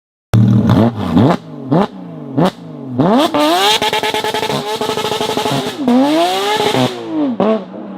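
Porsche sports-car engine being revved: four quick throttle blips, then a longer rev held high that dips and climbs again twice before dropping back to idle near the end.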